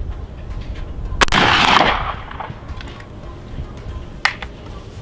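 A single shot from a Springfield Model 1873 trapdoor rifle firing a black-powder .45-70 round about a second in, echoing briefly. A sharp, much weaker click follows near the end.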